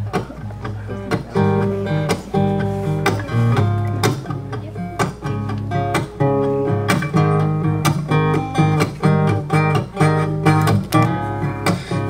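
Solo acoustic guitar played live, a steady run of picked and strummed chords with no singing yet.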